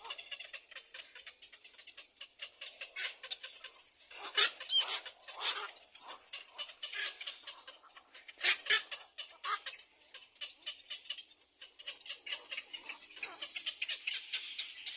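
Nestling birds calling in the nest: rapid high, scratchy chirps and clicks, with a few louder squeaky calls about four and a half and nine seconds in, and a denser run of chirping near the end.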